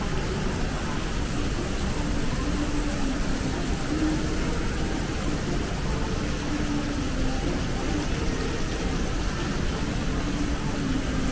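Shopping mall ambience: a steady wash of indistinct background noise with faint, distant voices.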